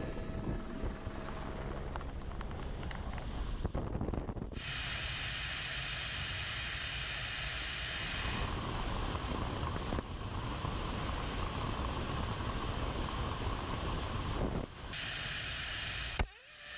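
Steady rushing wind buffeting a camera microphone in flight, with a heavy low rumble. The sound changes character about four seconds in and cuts off abruptly near the end.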